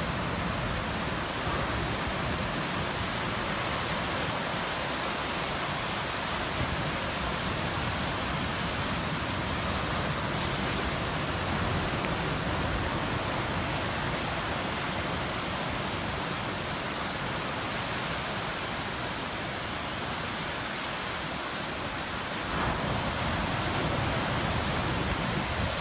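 Ocean surf breaking on a beach: a steady rushing wash of waves, growing a little louder near the end.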